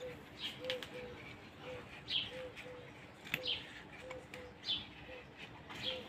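Birds singing: short, falling chirps from small birds about once a second, over a dove cooing in a run of short, low notes.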